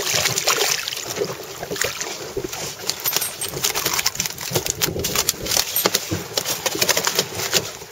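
Water splashing as a blackspot seabream is lifted out of the sea by hand, then a rapid string of knocks, slaps and rustling as the fish flaps and is handled in a cloth on the boat.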